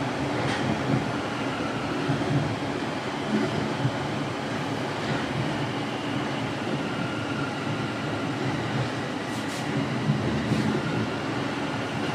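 Toronto Rocket subway train running between stations, heard from inside the passenger car: a steady rumble of wheels and running gear. A faint steady high tone joins in about halfway through.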